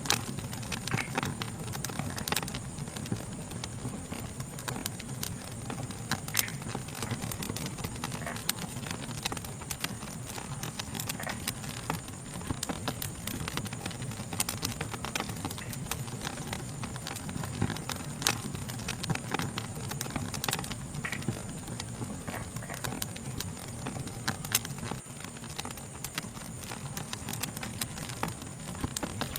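Wood fire crackling, with frequent irregular sharp snaps and pops over a low steady rumble of burning. A steady high-pitched insect chorus runs underneath.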